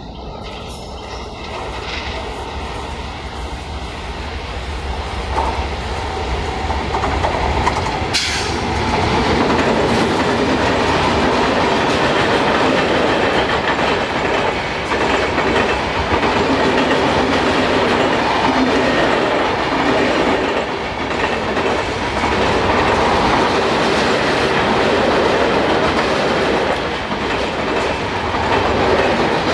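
Electric-hauled passenger train of LHB coaches approaching and passing close by. It grows steadily louder over the first eight or nine seconds as the locomotive nears, with a sharp burst of noise as the locomotive goes past. Then the coaches run past with a steady rumble and wheels clattering over the rail joints.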